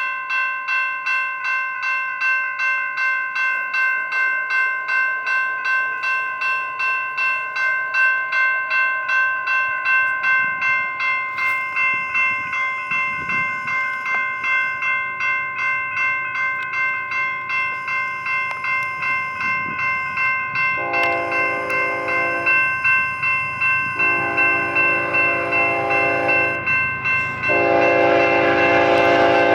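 Railroad crossing signal's electronic bell starts up suddenly and rings steadily with rapid even strikes as the crossing activates. About two-thirds of the way in, an approaching diesel locomotive's air horn sounds three long blasts over the bell, with a low train rumble rising toward the end.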